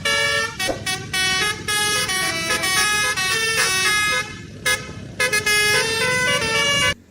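Basuri 'telolet' musical bus horn playing a quick tune of stepped notes in short bursts, with a brief break about four to five seconds in. It cuts off suddenly just before the end.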